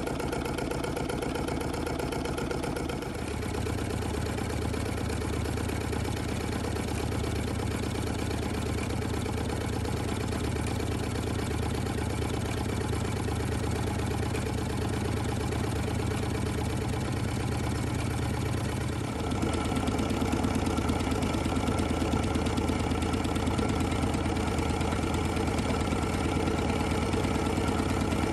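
A Carette toy hot air engine running steadily, with a rapid, even clatter from its piston and crank and the whir of string belts and pulleys driving the overhead line shaft. The sound grows a little louder about two-thirds of the way through.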